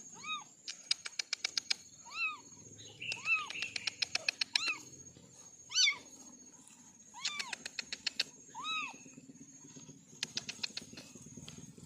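Kittens mewing: about seven short, high calls, each rising and falling in pitch, spaced a second or so apart. Between them come short runs of rapid ticking, at about a second in, around four seconds in, and again near the end.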